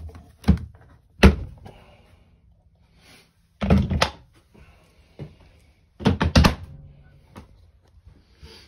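Loud hollow knocks and clunks of the round fishing-hole cover in the shack floor being worked by its recessed handle. There are single knocks about half a second and just over a second in, then two clusters of knocks, one at about three and a half to four seconds in and another at about six seconds in.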